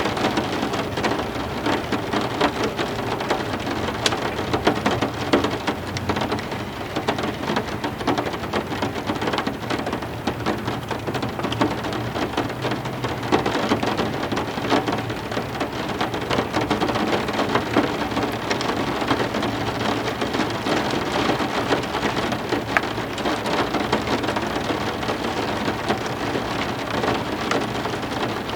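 Steady heavy rain pattering on a surface with many individual drop ticks, over a continuous low thunder rumble.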